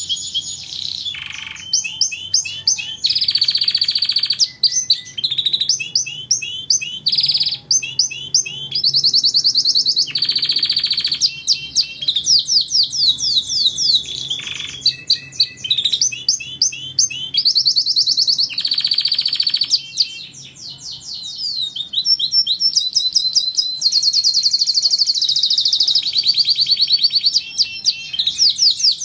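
Domestic canary in full song: a continuous run of fast, high trills and rolls of repeated notes, switching to a new phrase every second or two without pause.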